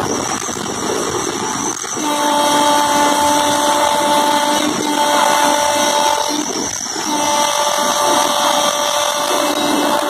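Electric locomotive's air horn sounded in three long blasts, the first starting about two seconds in, over the steady rush of the cab at high speed.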